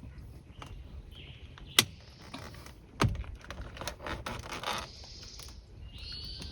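A screwdriver working in the steering wheel's release holes to free the airbag's clamps: two sharp clicks about a second apart, then a stretch of rattling, scraping plastic and metal.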